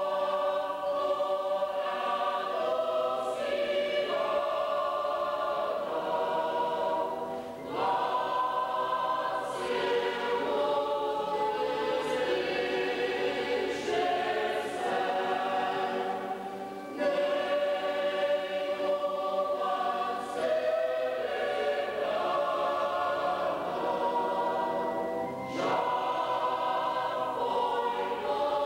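Choir singing a communion hymn in phrases a few seconds long, with short breaks between them.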